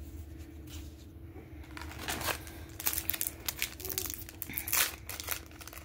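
A Panini Prizm trading-card pack wrapper crinkling and tearing as it is opened by hand: a run of sharp crackles that starts about two seconds in.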